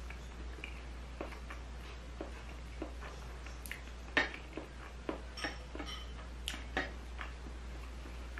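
Close-up eating sounds: a person chewing chewy rice cakes (tteokbokki) with cheese, heard as scattered soft wet clicks and smacks, with wooden chopsticks touching the plate and a glass bowl. The loudest click comes about four seconds in.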